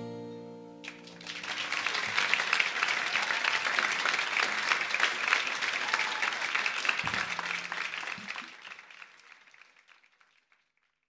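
The last acoustic guitar chord of a song rings out briefly, then a concert audience applauds. The applause starts about a second in, holds steady, and fades away near the end.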